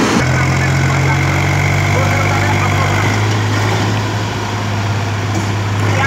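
JCB 3DX backhoe loader's diesel engine running steadily as the backhoe digs, a deep hum that shifts to a slightly lower pitch about halfway through.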